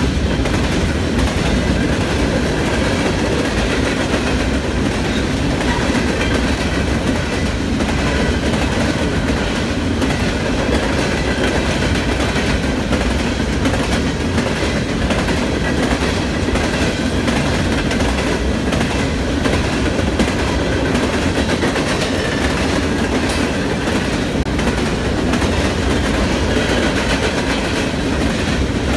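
Norfolk Southern freight train of open-top hopper cars rolling past: a steady, loud rumble and clatter of steel wheels on the rails, with no break.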